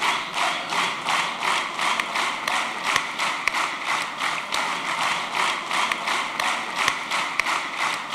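Large audience clapping in unison, a steady rhythm of a little more than two claps a second.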